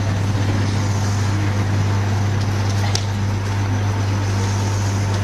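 Steady low hum with a constant hiss of room noise, and a faint tap of chalk on a blackboard about three seconds in as a curve is drawn.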